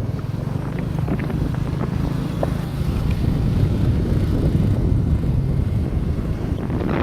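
Steady low rumbling noise of wind buffeting the microphone, with a brief sharp sound at the very end.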